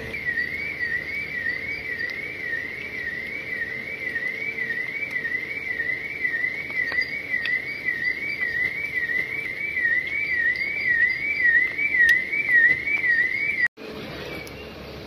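Electronic siren sweeping up and down in pitch about twice a second, steady and unbroken, then stopping abruptly near the end.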